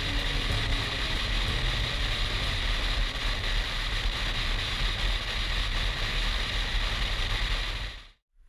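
BMW R1200 GS motorcycle riding at motorway speed: steady wind rush with engine and road noise, cutting off abruptly about eight seconds in.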